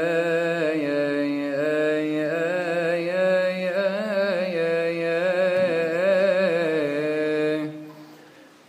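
A single male voice chanting a Coptic psalm, drawing out one long melismatic phrase with wavering ornaments on its held notes. The phrase stops about a second before the end, and the sound fades into a short pause.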